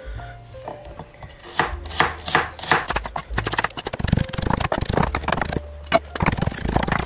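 Kitchen knife chopping garlic cloves on a wooden cutting board: a run of quick knocks of the blade on the board, starting about a second and a half in and coming faster near the end.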